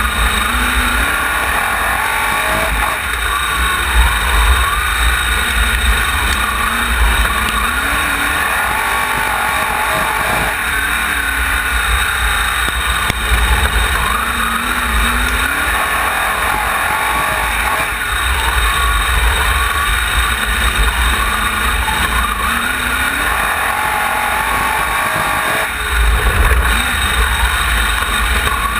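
Sprint car's V8 engine heard from its on-board camera while racing, the pitch climbing and dropping away every few seconds as the driver gets on and off the throttle around the dirt oval. A heavy rumble and rushing hiss of wind and vibration on the camera sit under it throughout.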